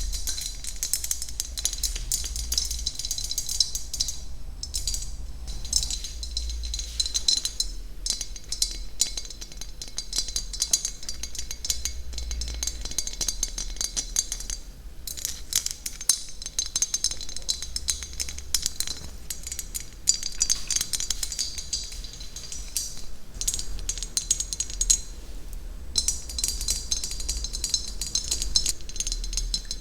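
ASMR trigger sounds close to the microphone: a fast, dense stream of small clicks, taps and clinks, pausing briefly a few times.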